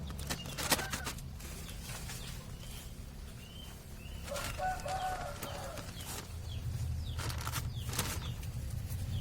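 Scattered clicks and rustles of hands working soil and a plastic polybag, the sharpest about a second in, over a low steady rumble. Birds call faintly in the background, with a short call near the middle.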